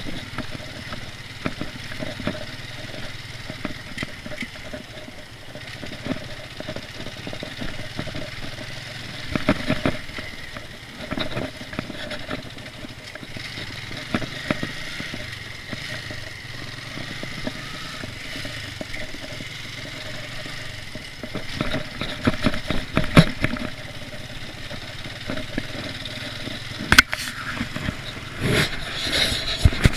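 Motorcycle engine running steadily, with scattered sharp clicks and knocks, more of them in the second half.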